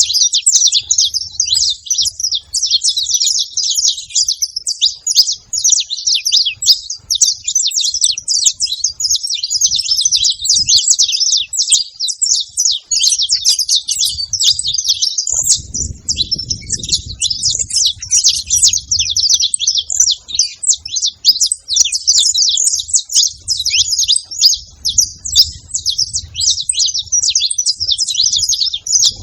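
A group of saffron finches chirping and singing together, many short, quick, high notes overlapping in a continuous chatter.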